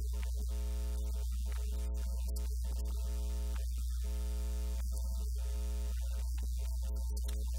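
Steady low electrical hum with a buzz of evenly spaced higher overtones, unchanging throughout.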